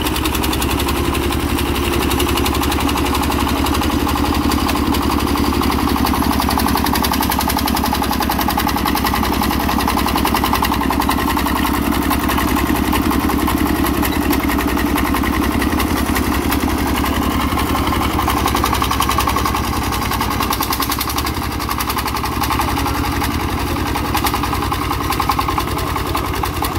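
Single-cylinder diesel engine of a two-wheel công nông tractor running steadily with a fast, even chug as it hauls a loaded trailer along a rutted dirt track.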